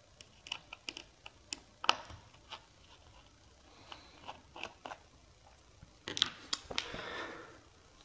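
A small Torx T6 screwdriver backing the last screw out of a 2.5-inch laptop hard drive's metal top cover: a scatter of light ticks and clicks of the bit and screw against the cover. Near the end a short rustling stretch with a few clicks as the screw is lifted away and the screwdriver is set down.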